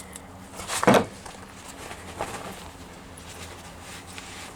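A short knock about a second in, with a fainter one a little after two seconds, from parts and tools being handled, over a low steady hum.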